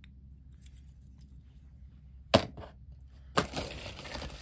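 A single sharp clack, as of a diecast toy car set down on a cutting mat, then about a second later the loud crinkle and rustle of a plastic padded mailer as a hand rummages inside it.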